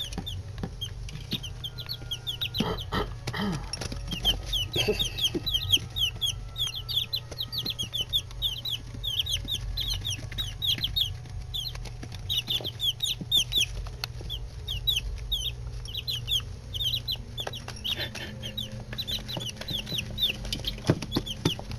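A brood of nine-day-old chicks peeping continuously, many short high peeps overlapping, over a steady low hum.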